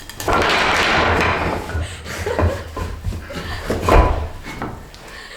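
A rough scraping for about a second and a half, then a few wooden knocks and a heavier thud about four seconds in: a small chair built from scrap wood being moved and sat on.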